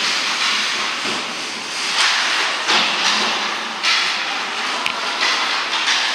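Ice skate blades scraping and carving across the rink, a run of hissing scrapes that each start suddenly, with a sharp click from a stick or puck about five seconds in.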